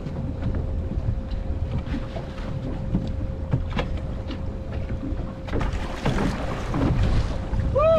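Wind buffeting the microphone on an open boat, with water washing around the hull. A thin steady hum stops about five and a half seconds in, and a louder rush of noise follows for a second or two.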